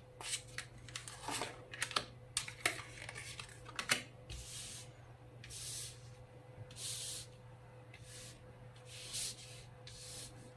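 Tarot cards being handled: a run of light clicks and taps as cards are picked from the deck, then about five soft, brief swishes of cards sliding, over a faint steady hum.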